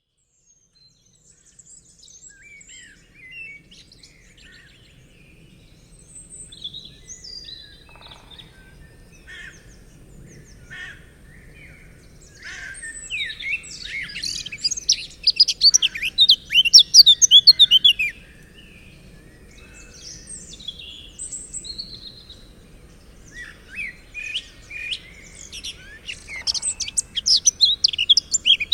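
Forest birds singing and calling at dusk, a mix of several species. The track fades in from silence, then the chirps and fast high trills swell twice into a dense chorus, over a faint low background hum.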